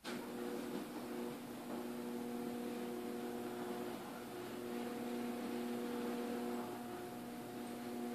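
Garage door opener motor switching on abruptly and running with a steady hum of several fixed tones over a mechanical whir.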